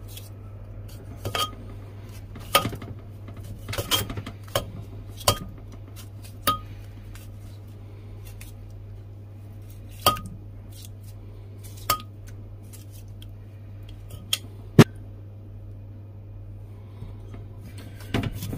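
Kitchen knife blade clicking against a clay mortar as a tomato is sliced by hand over it: about a dozen sharp, irregularly spaced clinks with a short ring, over a steady low hum.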